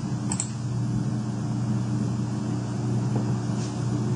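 Steady low machine hum with several evenly spaced overtones, with a faint click about a third of a second in.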